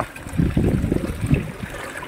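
Water gurgling and splashing in irregular spurts: the flushing water of hand hydro-drilling a sand well.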